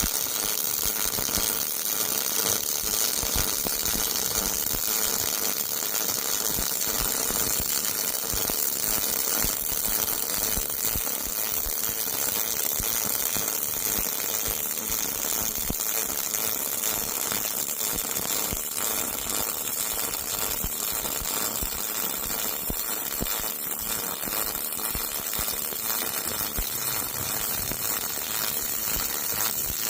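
MIG welding arc from an Everlast Cyclone 253DPi double-pulse MIG welder laying a bead: a steady crackling hiss.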